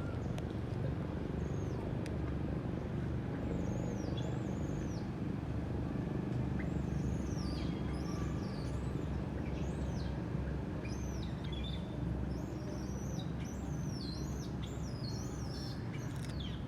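Baby monkey crying: short, high-pitched, arching squeals repeated over and over, starting about a second and a half in and coming thicker in the second half, over a steady low background rumble.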